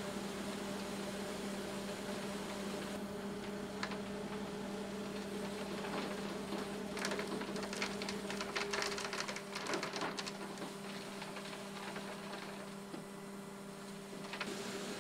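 Concrete mixer truck running with a steady engine hum as it discharges concrete down its chute. A spell of short scrapes and knocks comes around the middle.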